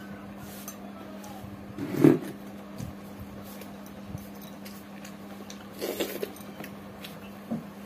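A person eating rice by hand from steel dishes: fingers working the food, a short louder knock about two seconds in, and mouth sounds around six seconds as a handful is eaten, over a steady low hum.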